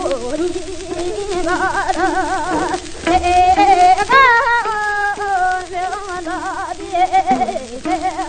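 Korean Gyeonggi folk singing (gyeongseodo sori) from an old gramophone disc: a voice holds long notes with a wide, fast vibrato, with short breaks between phrases.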